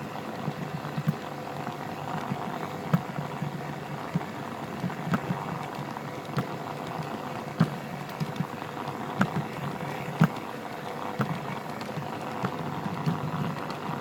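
G-scale model train running along garden track, heard from on board as a steady running noise with a faint steady whine, broken by sharp clicks about once a second at uneven spacing.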